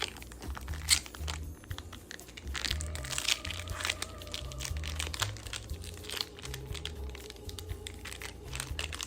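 Foil booster-pack wrapper of Pokémon cards crinkling and tearing as it is worked open by hand, in many short crackles, over soft background music.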